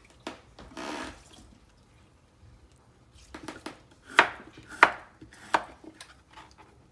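Kitchen knife chopping a cucumber on a wooden cutting board: a few light taps, then three sharper knocks of the blade against the board about two-thirds of a second apart.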